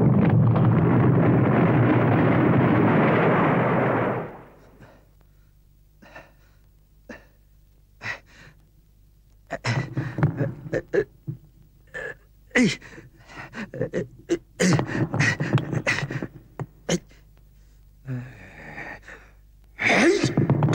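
A loud, deep rumble of collapsing rock cuts off about four seconds in. After a pause, an old man lets out a string of short gasps, grunts and hard breaths as he comes round and crawls over the rubble.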